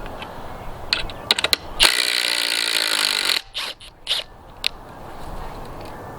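Cordless impact driver hammering with a loud ratcheting rattle for about a second and a half, then a few short trigger bursts. A few sharp clicks come just before it.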